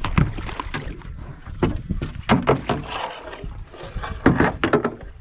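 Splashing and knocking against a small fishing boat in several irregular bursts as a lively zander is landed.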